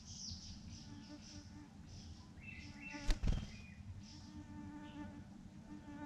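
An insect buzzing steadily close by, with a single sharp knock about three seconds in, the loudest sound.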